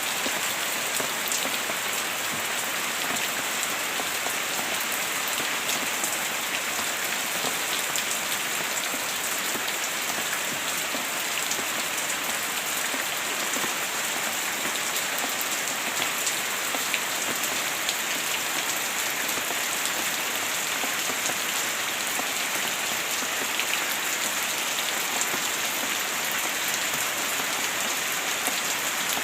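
Heavy rain falling steadily on a surface, a dense even hiss made up of countless small drop ticks.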